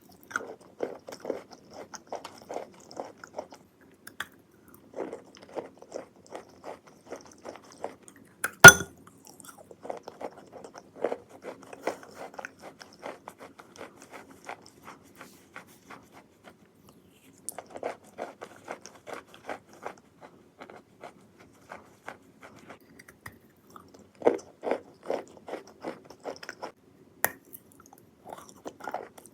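Close-miked chewing of wet chalky clay: runs of quick, crisp crunches broken by short pauses as it is worked down into a creamy paste. A single loud sharp snap about nine seconds in is the loudest sound.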